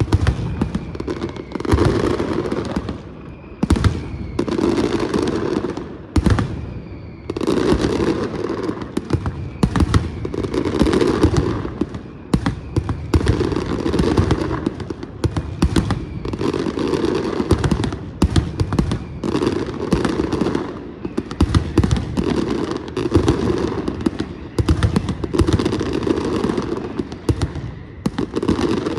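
Firework castle burning: a continuous dense crackle of rapid pops and hissing, swelling and easing every second or two, with a few faint whistles in the first several seconds.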